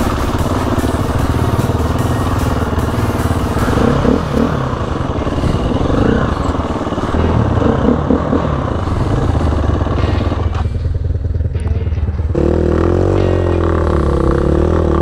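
Four-stroke single-cylinder dirt bike engine running with the revs rising and falling. About twelve seconds in the sound changes to a steadier, slowly wavering note.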